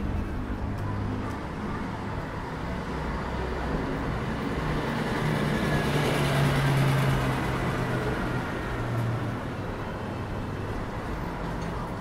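Street traffic, with a motor vehicle's engine hum building up, passing close about halfway through, then fading.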